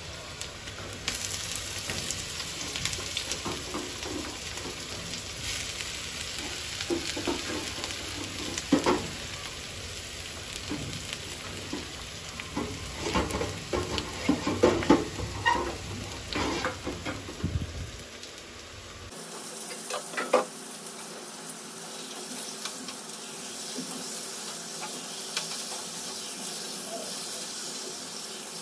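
Chicken curry sizzling in a hot pan while a utensil stirs it, knocking and scraping against the pan many times. About 19 seconds in the sound changes to a steadier sizzle with only one more knock.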